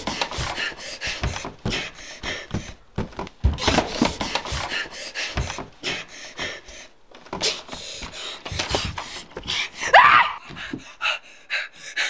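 A boy breathing hard and straining, in short irregular gasps, with a brief strained cry about ten seconds in.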